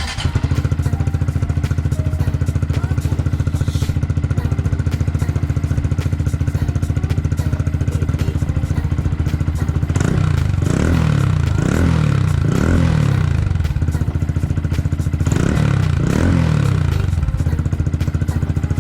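Honda Monkey 125's single-cylinder four-stroke engine idling steadily through a Yoshimura GP-MAGNUM down-type exhaust with stainless silencer. The throttle is blipped three times in quick succession about ten seconds in, then twice more a few seconds later.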